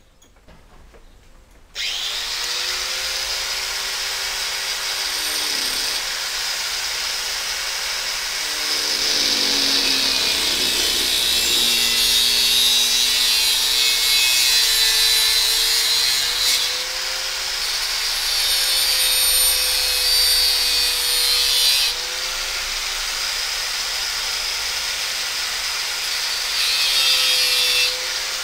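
Electric angle grinder starts up about two seconds in and grinds into a steel bar clamped in a vise, a steady motor whine under a loud hiss of disc on metal. The grinding gets louder in several stretches as the disc is pressed into the work.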